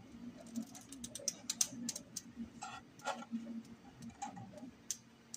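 Irregular light clicks and taps as a 3D-printed wood-filament PLA shelf is handled and lifted off a glass print bed. The clicks come thickest in the first couple of seconds, over a faint low hum.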